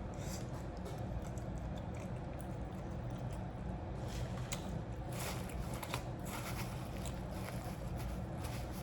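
A person chewing and smacking while eating shrimp, wet squishy bites coming and going, over a steady low hum.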